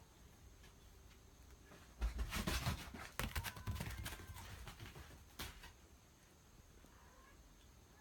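Pets scrambling about: a run of thuds, clicks and scuffles starts about two seconds in and lasts about three and a half seconds.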